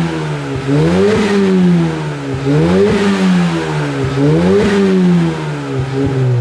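Suzuki Swift Sport ZC33S's 1.4-litre turbocharged four-cylinder revved in neutral during warm-up, breathing through a TM-SQUARE R-60 complete exhaust. There are three throttle blips, about one every second and three-quarters, each climbing quickly and then falling back slowly toward idle.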